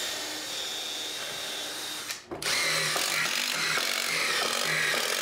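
Cordless drill running under load as it bores and drives into pine slats: two long runs with a short break just over two seconds in.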